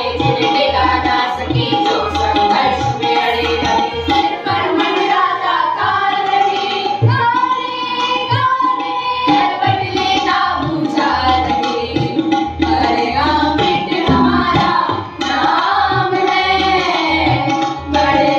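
A group of students singing an Indian song together, accompanied by tabla strokes and a harmonium holding a steady note.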